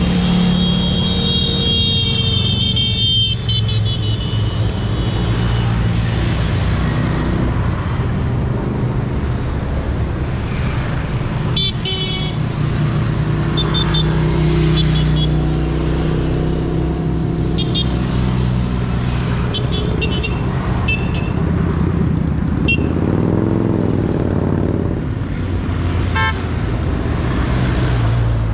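Motorcycle engines running steadily, with a wailing siren for the first few seconds and short horn toots scattered through the rest. An engine revs up and down briefly near the end.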